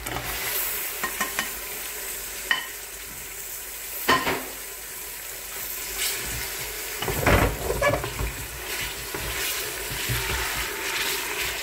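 Raw beef chunks sizzling in hot oil with fried onions in a pressure cooker, as a plastic slotted spatula stirs them, scraping and clicking against the pot. The stirring is loudest about seven seconds in. The meat is being browned (bhuna) until it changes colour.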